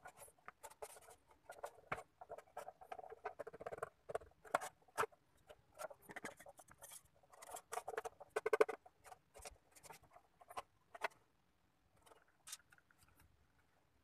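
Plywood box pieces being handled and fitted together by hand: irregular clicks, taps and scraping of wood on wood, busiest for the first nine seconds or so and thinning out near the end.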